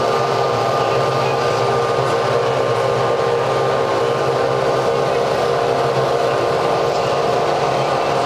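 Formula One cars' 2.4-litre V8 engines running at steady revs on the grid: a loud, unchanging drone with several steady tones and no revving.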